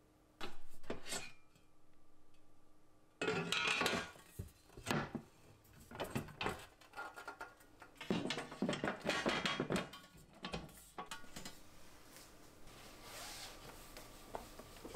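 Light knocks, clatter and scraping of white shelf boards being lifted and moved on a wall-mounted shelving unit. Near the end, a soft brushing rustle from a feather duster.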